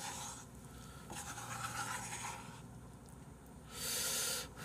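Faint scraping of chopsticks stirring instant ramen in a bowl. Near the end comes one strong breathy blow on a steaming lift of hot noodles to cool them.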